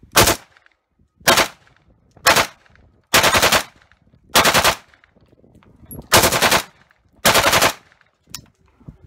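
Galil rifle firing on full auto in seven short bursts of a few rounds each, about one burst a second, two of them a little longer. A faint click follows near the end.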